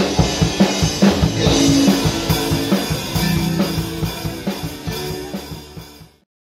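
Rock band playing: drum kit keeping a steady beat with guitars over it. The music fades out over the last few seconds and stops just before the end.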